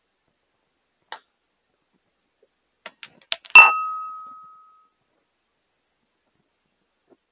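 A thrown rock hits the concrete porch beside a ceramic bowl: a few light ticks, then one loud sharp clink that rings on and fades over about a second.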